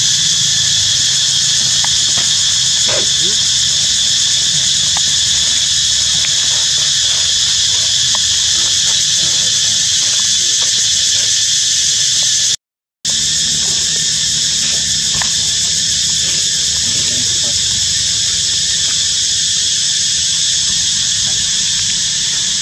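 Steady high-pitched buzzing chorus of insects, unbroken except for a brief cut to silence about halfway through.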